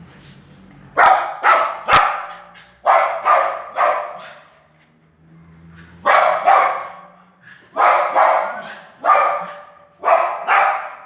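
A dog barking loudly in repeated short barks, in clusters of two or three with short pauses between, about a dozen barks in all. Two sharp clicks come with the first barks.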